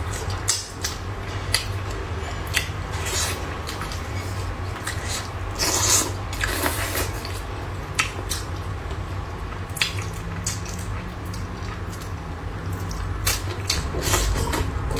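Close-miked eating sounds: wet chewing and mouth sounds, with scattered sharp clicks of utensils against dishes.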